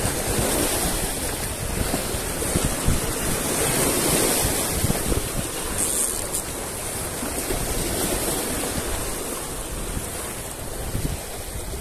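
Sea waves surging in and breaking against rocks, the wash swelling and easing.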